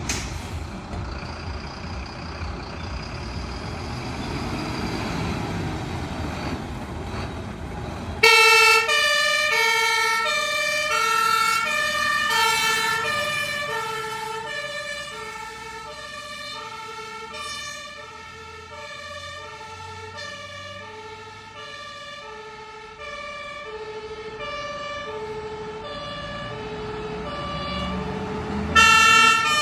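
Fire truck's German two-tone siren (Martinshorn) switches on suddenly about eight seconds in, sounding its alternating high-low tones. It grows fainter as the truck moves off, then louder again, with a sudden jump near the end. Before the siren, the truck engine's low rumble.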